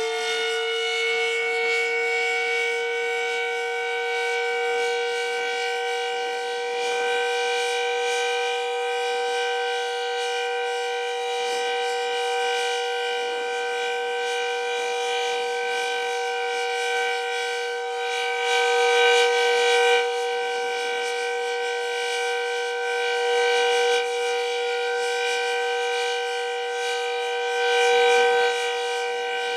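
Decot Red Arrow Model 12 outdoor warning siren sounding the steady alert signal: a loud, multi-toned wail that finishes climbing to full pitch in the first second or two and then holds steady, swelling briefly louder a few times.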